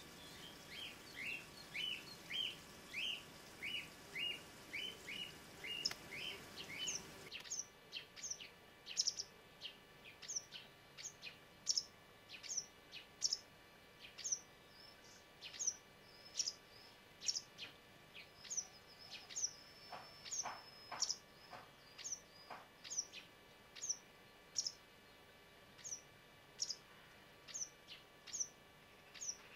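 Small birds calling over and over, about two short calls a second. About seven seconds in the calls change to sharp notes that drop steeply in pitch, with one longer held whistle near the middle.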